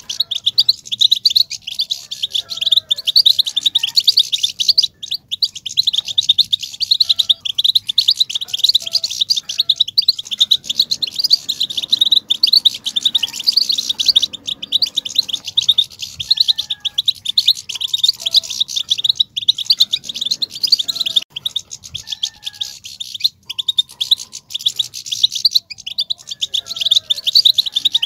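European goldfinch singing a fast, unbroken twittering song of rapid high notes, the excited chatter that keepers call batbata and play to set male goldfinches singing.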